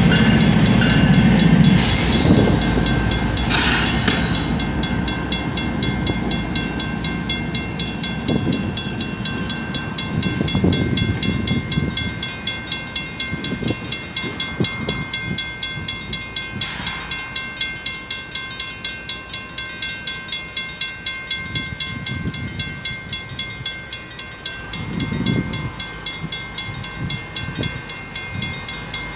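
Griswold mechanical crossing bells ringing in a fast, even series of strikes with a steady ringing tone. For the first two seconds they are joined by the loud rumble of a Union Pacific AC45CCTE diesel locomotive running past close by. After that the rumble falls away and the bell strikes stand out clearly.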